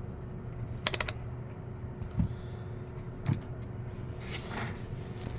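Handling noises on a workbench as small parts and tools are set down and moved: a quick rattle of clicks about a second in, then two separate knocks and a short scrape, over a faint steady hum.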